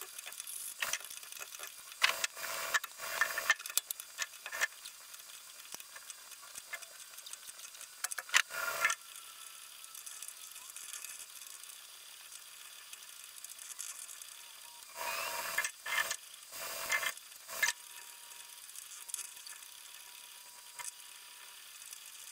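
Intermittent clinks and knocks of metal parts being handled while a lathe chuck is changed and its jaws reversed, coming in three short clusters over a faint hiss.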